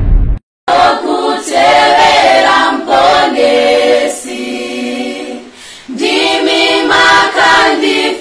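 A deep boom cuts off, then a school gospel choir sings a cappella in several-part harmony, with a short break between phrases about two-thirds through.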